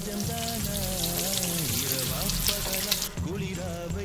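Food sizzling and frying in oil in a pan on a gas stove, a dense crackling sizzle, with a melody of background music playing over it.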